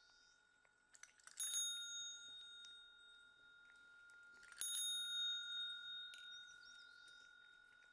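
Chrome service bell struck twice, about three seconds apart, each ding ringing on and fading slowly.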